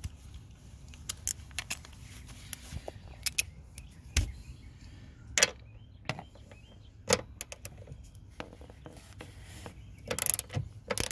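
A ratcheting wrench on a 14 mm socket clicking as it loosens a seat-rail nut, with irregular sharp metal clicks and a quicker run of clicks about ten seconds in.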